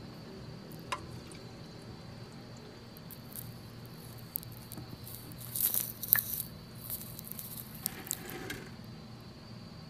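Wet squishing and small clicks of an oil-soaked spin-on oil filter being handled and worked loose by hand, busiest around the middle and again near the end, over a steady low hum.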